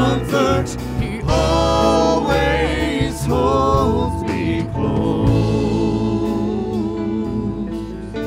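A live church worship band with several singers, keyboard and acoustic guitar performing a slow gospel worship song. The singing stops about halfway through, and the instruments carry on with held chords that slowly fade.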